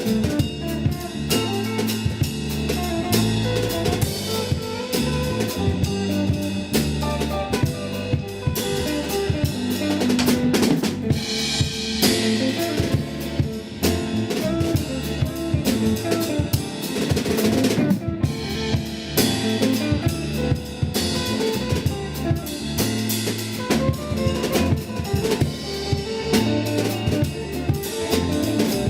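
Music: a drum kit groove with rimshots, kick and snare over a bass line that steps through low notes.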